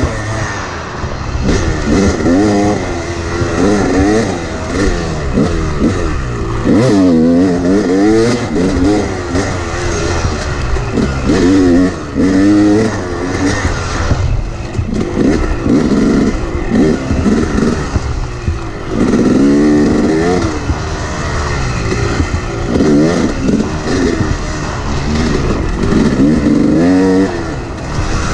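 Two-stroke Yamaha dirt bike engine revving up and dropping off again and again as the rider works the throttle and gears along a trail.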